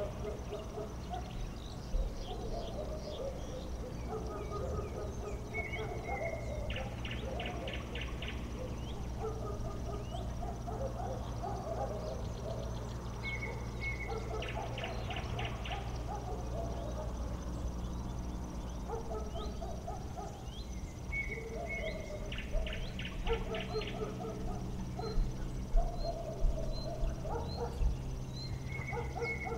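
Outdoor night ambience of insects and birds: a steady high insect trill, with a call repeating about every seven seconds (a short high note, then a quick pulsed rattle) over many soft low chirps and a faint low hum.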